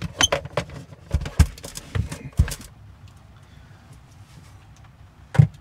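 A quick, uneven run of knocks and clatter over the first two and a half seconds, then a single heavy thump near the end, as gear is handled and shifted about.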